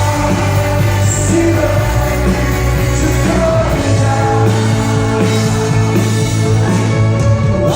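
Live rock band playing loudly, with heavy held bass notes and sung vocals.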